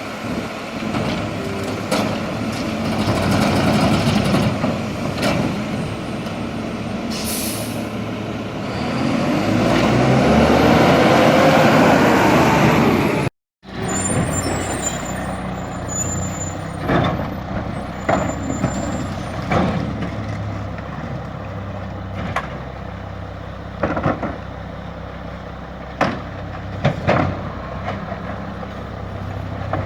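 Diesel garbage truck running, with a short air-brake hiss. The engine then revs up for several seconds as it drives the packer. After a cut, the truck runs steadily while several sharp bangs ring out as trash and containers strike the truck.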